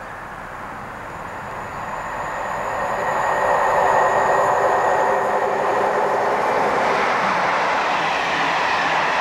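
Electric locomotive-hauled InterCity express train approaching and running through the station at speed, growing loud over the first few seconds. A steady whine sounds as the locomotive passes, giving way near the end to the even rush of the coaches going by.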